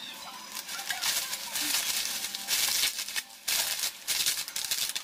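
Plastic bubble wrap crinkling and rustling unevenly as it is handled and pulled off a new Vespa exhaust muffler, dropping away briefly a little after three seconds in.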